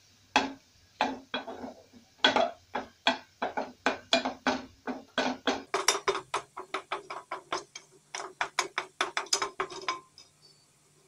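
Wooden spoon knocking and scraping against the inside of an aluminium pot while stirring onions, in quick repeated strokes, several a second, that stop about a second before the end.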